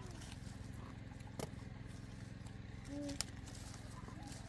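A steady low hum under two sharp clicks of sapodilla stems snapping as fruit is picked by hand, one about a second and a half in and one about three seconds in.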